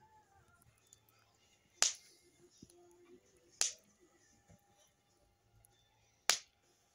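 Wood burning in a washing-machine-drum fire pit, giving three sharp pops a couple of seconds apart.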